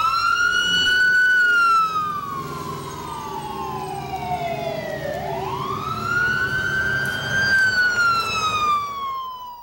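A siren wailing: it climbs, holds, then slowly falls, and climbs again about five seconds in before falling away. Beneath it is a steady hum with traffic and generator noise.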